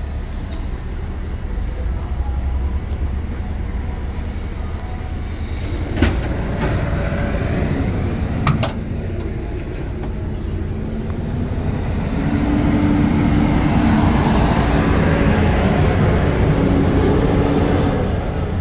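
International T444E 7.3-litre V8 diesel engine of a 1992 International 4600 truck running at idle, a steady low rumble. It grows louder from about twelve seconds in, and two sharp clicks come about six and eight and a half seconds in.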